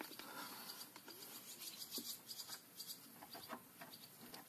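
Faint scattered clicks and light rubbing of hands handling metal parts at a tractor transmission's input shaft.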